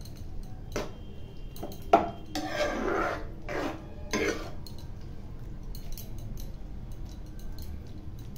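Steel ladle stirring thick dal in a metal pan, scraping and knocking against the pan several times in the first half, the sharpest knock about two seconds in, then only light occasional clinks.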